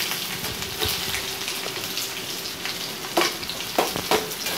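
Sliced onions sizzling in hot oil in a stainless steel kadai while a steel spatula stirs them, knocking and scraping against the pan a few times in the second half.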